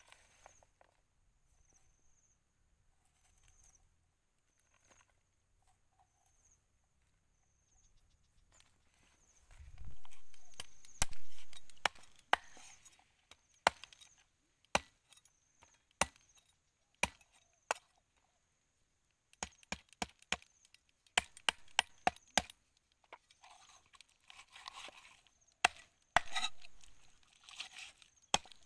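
A cleaver chopping a raw whole chicken apart on a wooden chopping block: sharp chops that begin about a third of the way in, scattered at first and then coming in quick runs.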